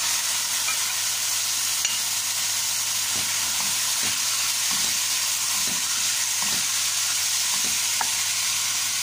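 Marinated chicken pieces frying in hot oil with onion, garlic and ginger: a steady, loud sizzle. A spatula stirs through the pot, its short scraping strokes repeating about once a second from a few seconds in.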